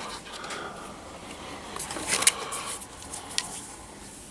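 Pliers and other metal hand tools clinking as they are handled in a toolbox drawer, with a short clatter about two seconds in and a single click a little after three seconds.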